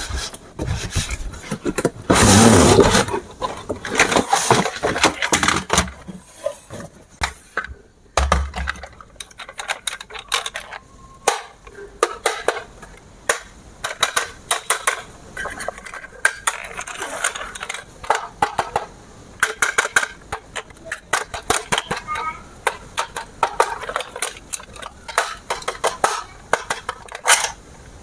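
Irregular clicks, clacks and scrapes of hard plastic being handled, like toy parts and packaging knocked and moved about, denser and louder for the first few seconds.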